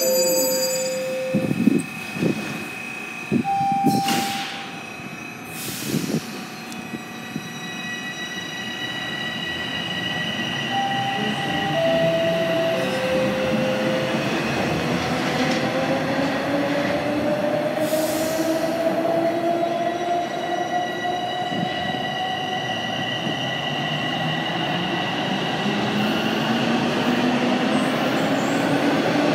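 Bombardier Toronto Rocket subway train pulling out: a few knocks in the first seconds, then the propulsion motors whine and rise steadily in pitch as the train gathers speed and grows louder. A short three-note falling chime sounds about eleven seconds in.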